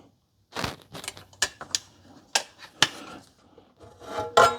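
Irregular clicks and light knocks of PC parts being handled and pushed into a small Jonsbo NV10 ITX case, with a louder clatter near the end.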